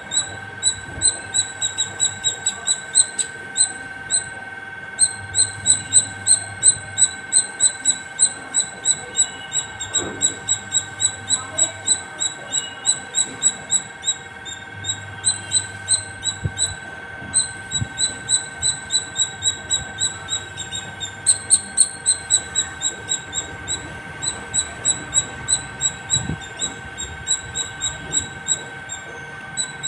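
Indian palm squirrel calling non-stop: a long series of sharp, high 'chip' chirps at about three to four a second, pausing only briefly now and then.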